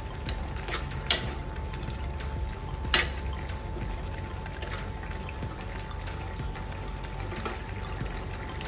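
Thick pineapple-and-coconut curry bubbling in a kadai while a wooden spatula stirs it. The spatula knocks against the pan a few times, loudest about three seconds in.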